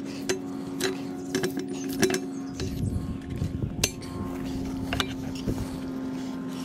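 Metal strap buckles and clips on a rebreather's cylinder straps clicking and clinking in irregular taps as an oxygen cylinder is strapped on, over a steady low hum.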